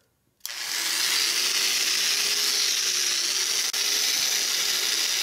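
Lister Stablemate electric cattle clipper switched on about half a second in; its brushed motor and cutting head run with a steady high whine and hiss, with a single click about three and a half seconds in. It runs while the cord is flexed to find a dead spot in it.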